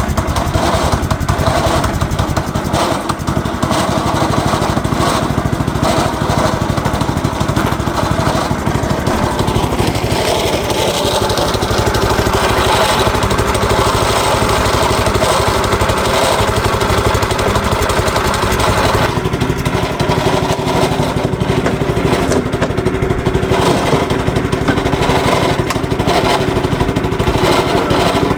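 Predator 212 single-cylinder four-stroke engine in an old Yamaha golf cart running steadily, just after being started. About two-thirds of the way through, the higher part of its sound drops away and the engine note settles lower.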